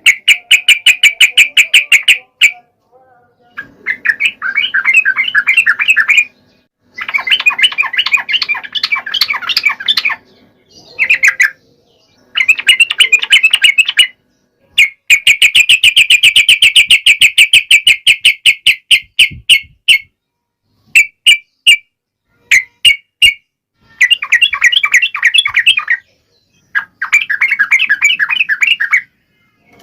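Yellow-vented bulbul (trucukan) song in the fast chattering 'ropel' style: rapid rattling trills in bursts of one to four seconds, separated by short pauses, with a few short single notes in the middle.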